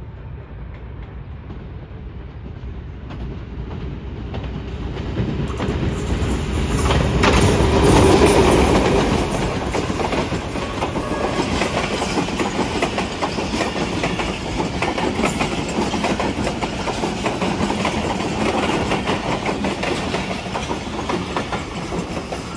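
Express passenger train passing through at speed behind a diesel locomotive. The noise builds to its loudest about eight seconds in as the locomotive goes by, then the coaches follow with a steady clickety-clack of wheels over the rail joints.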